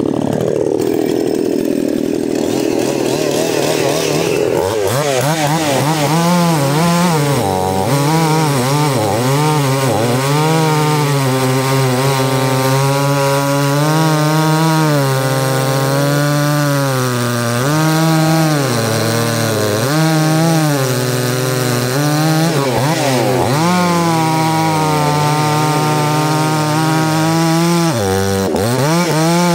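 Two-stroke chainsaw at high revs cutting through wood. Its engine note sags and recovers again and again as the chain loads up in the cut, with a short deep dip near the end.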